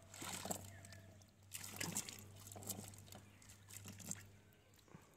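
Quiet, scattered small splashes and drips from a wet cast net full of small fish being handled at the water surface, in short separate bursts.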